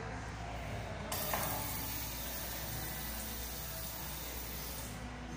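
Water from the faucet of an FV Quantum washbasin gushing on suddenly about a second in and running steadily into the ceramic bowl and drain, then cutting off near the end.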